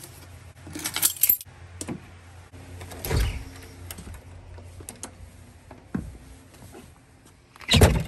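A set of keys with a car key fob jangling as it is picked up, about a second in. Then door sounds: a low thud about three seconds in and a louder bang near the end as the front door is opened and pulled shut.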